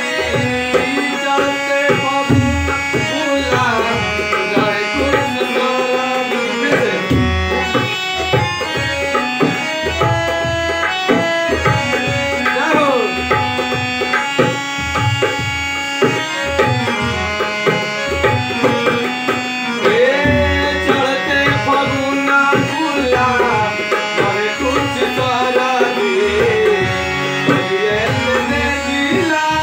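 A harmonium playing a continuous, held melody over a dholak hand drum beating a dense, steady rhythm, with a man's singing voice at times.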